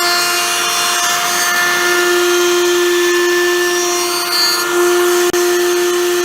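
Electric router running at full speed and cutting, a loud steady motor whine over cutting noise, while the opening of a dust-extraction blast gate is routed out.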